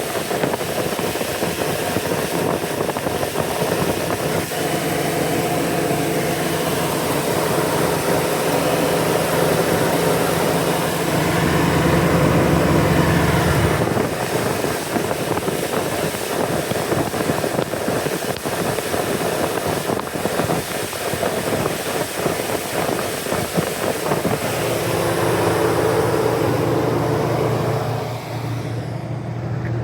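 Car engine idling just after starting, with a misfire that the owner puts down to cylinder 2. It swells a little twice, about a third of the way in and again near the end.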